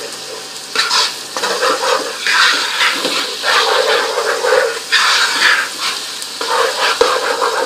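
Sliced onions and cumin seeds sizzling in hot oil in a pot while a spoon stirs them, the sizzle surging with each stirring stroke about once a second.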